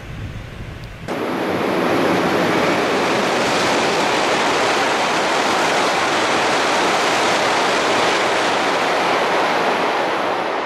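E2 series Shinkansen passing through the station at high speed: a loud, steady rush of air and wheel noise that starts abruptly about a second in and begins to fade near the end as the train clears.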